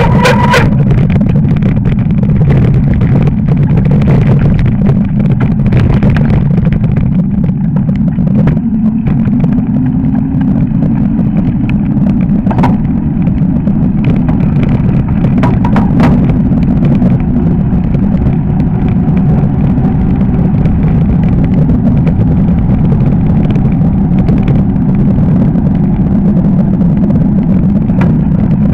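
Fat-bike ride down a packed-snow road: wind buffeting the handlebar camera's microphone over the tyres rolling on snow, a loud steady low rumble. A few sharp knocks from bumps, the clearest about twelve and sixteen seconds in.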